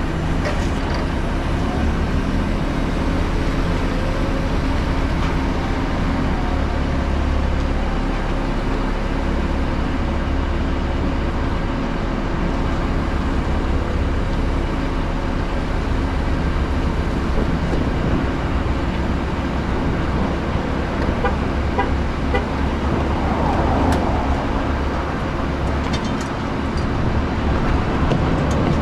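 Pickup truck engine idling steadily with a low, even rumble. A few light knocks come near the end.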